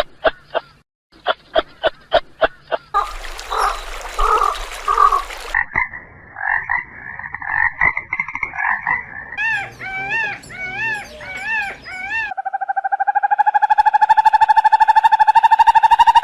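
A series of frog calls: short pulsed croaks near the start, a rougher noisy stretch, warbling calls, then a long steady trill from about twelve seconds in.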